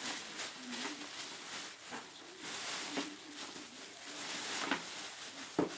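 Thin plastic shopping bag rustling and crinkling as hands dig through it, with a sharp crackle near the end.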